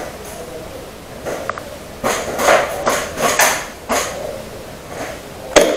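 A string of irregular sharp knocks and clatters, clustered from about two seconds in until about four and a half seconds in.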